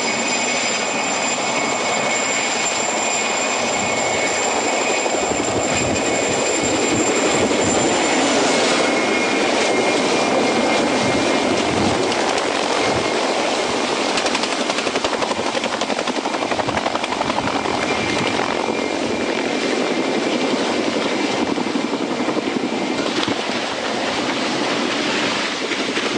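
Helicopter running at full power close by: a dense rotor chop with a high steady turbine whine. The whine fades out about eight seconds in, and the sound wavers near the end.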